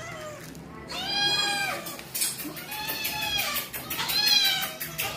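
House cats meowing to be fed: three long meows one after another, each rising and then falling in pitch.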